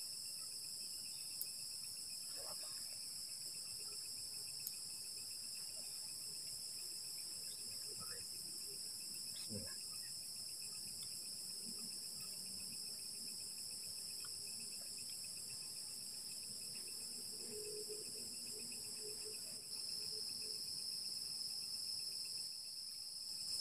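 A steady chorus of night insects: a continuous high, shrill chirring with a faster pulsing trill under it. It grows a little louder about twenty seconds in. A few faint taps sound now and then.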